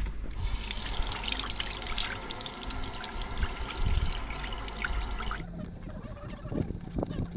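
Tap water running and splashing, cut off abruptly about five and a half seconds in.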